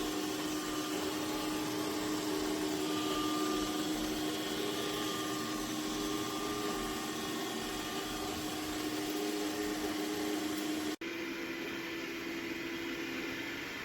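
Dreame X50 Ultra robot vacuum running with a steady hum. About 11 s in the sound cuts abruptly to a slightly different steady hum.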